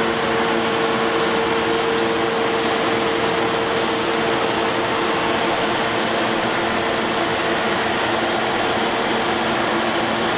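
Railway track maintenance machinery running with a steady, loud mechanical noise. A hum within it fades out after about six seconds.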